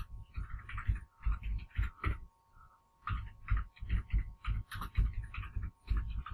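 Computer keyboard being typed on: quick, irregular runs of keystrokes with short pauses between words.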